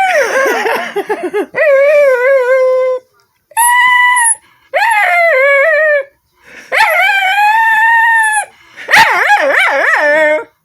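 A dog howling and whining in a string of about six drawn-out calls, each with a wavering, sliding pitch and short breaks between them.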